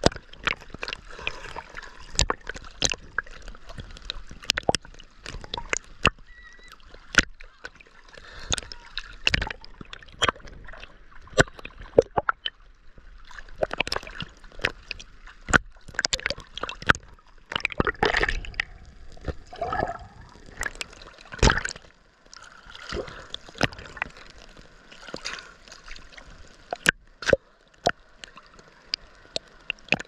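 Sea water sloshing and lapping against a waterproof camera riding at the surface, with many sharp, irregular clicks and knocks as small waves slap its housing.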